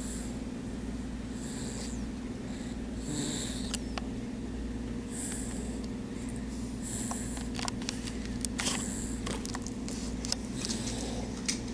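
A sleeping pet snoring, with a hissy breath about every two seconds over a steady low rumble. A few sharp clicks come in the second half.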